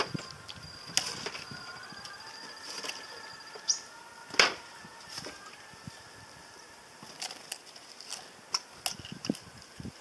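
Tits at a plastic-bottle feeder: scattered sharp clicks and taps on the plastic, with brief wing flutters as birds come and go. The loudest tap comes about four and a half seconds in.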